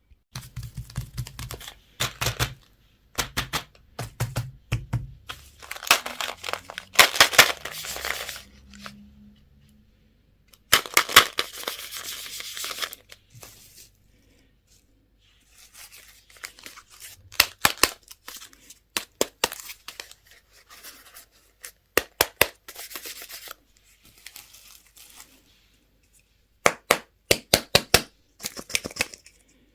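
Candy wrappers being torn open and crinkled in separate bursts of crackling, with short pauses between them and a run of quick sharp crackles near the end.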